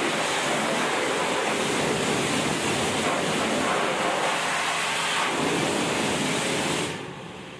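Water jet from a hose spray gun hissing steadily against a motorcycle and a wet tiled floor; it drops away near the end.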